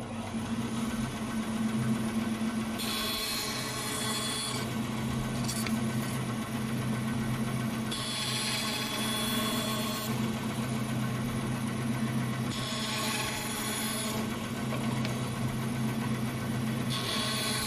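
Vertical bandsaw running with a steady hum while it cuts wedges from a board in a jig. A hissing cut through the wood comes about every four to five seconds, three times, with a fourth starting near the end.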